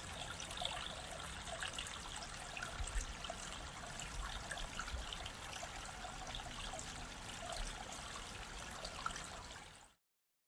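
A small stream trickling steadily, then cutting off abruptly near the end.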